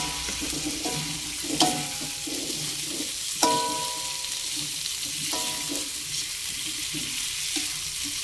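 Bakso meatballs sizzling in oil and chili-garlic paste in a metal wok as they are stir-fried with a wooden spatula. The spatula knocks against the wok four times, about every two seconds, and each knock leaves a short metallic ring.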